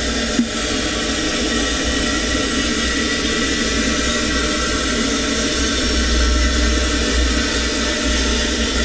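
Robot-held CNC plasma torch cutting through domed steel, a steady loud hiss of the plasma arc, with one short click about half a second in.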